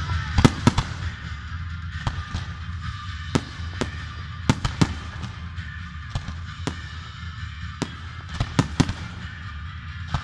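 Fireworks going off: sharp bangs and cracks at an irregular pace, about one or two a second, over a steady low rumble.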